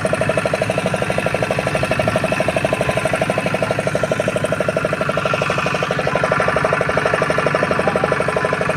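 A small fishing boat's engine idling, with a steady, fast, even knocking beat.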